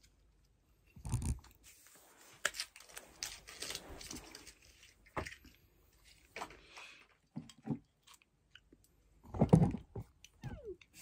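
Close, irregular mouth and breath noises near the microphone: wet clicks and crunchy rustles, with two low thumps, one about a second in and one near the end.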